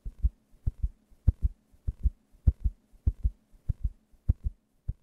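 Heartbeat in paired lub-dub thumps, steady and even at about 100 beats a minute, over a faint steady hum.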